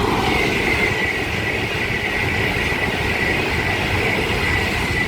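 Class 390 Pendolino electric train passing through at speed: a steady loud rush of wheels on rail with a thin high whine running through it.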